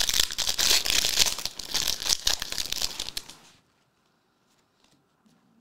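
Trading-card pack wrapper being torn open and crumpled: dense crinkling and tearing that stops about three and a half seconds in.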